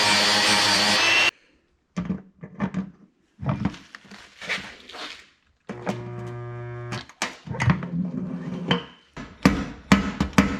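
A power sander runs and cuts off about a second in, followed by knocks and clatter of handling tools. About six seconds in, a steady buzz lasting roughly a second: the stud welder of a dent-puller kit welding a pull stud onto the fender. Then a run of sharp knocks as the stud is pulled to draw out the dent.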